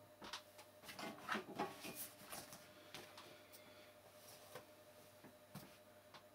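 Faint handling noise between piano pieces: a quick run of soft rustles, clicks and light knocks in the first two seconds or so, then a few scattered ticks, as the player handles the sheet music and stand on the digital piano.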